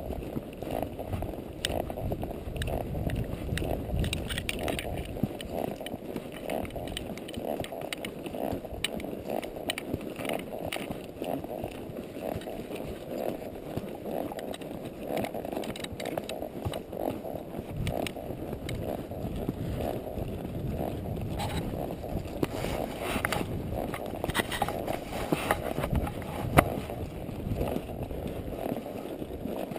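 Quarter Horse walking under a rider: a steady crunching of hooves on the ground with scattered irregular clicks and knocks.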